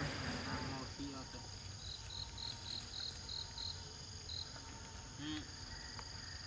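Insects buzzing steadily at a high pitch. A chirping call pulses about three times a second for a couple of seconds in the middle.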